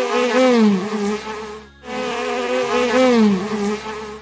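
Bee buzzing, a loud pitched drone that dips in pitch once. It breaks off briefly about two seconds in, and the same buzz starts again with the same dip.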